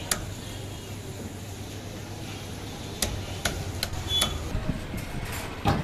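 Meat cleaver chopping cooked tandoori chicken on a wooden chopping block: sharp knocks, one near the start, then a quick run of four about three seconds in, and a heavier thud near the end.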